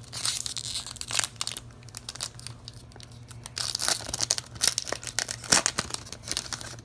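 Foil Yu-Gi-Oh! booster pack wrapper crinkling and tearing as it is pulled open by hand. The sharp crackles come in two busy spells: at the start, and again from about three and a half seconds in.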